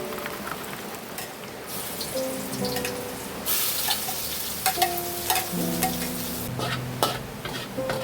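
Food sizzling in a pan while it is stirred, with a utensil clicking against the pan now and then. The sizzle grows louder and hissier for a few seconds in the middle.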